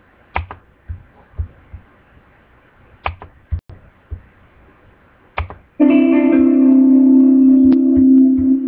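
A few scattered light knocks and taps, then about six seconds in a loud musical chord starts and is held steady, several pitches ringing together without fading.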